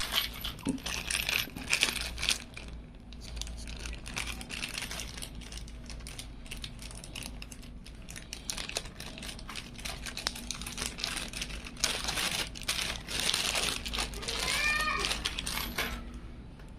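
Crinkling and clicking of plastic packaging and parts being handled, irregular and continuous. A cat meows once near the end.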